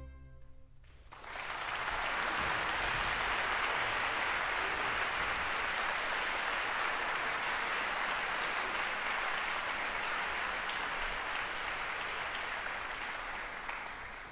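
The orchestra's final chord dies away, and about a second in an audience breaks into steady applause, which begins to fade near the end.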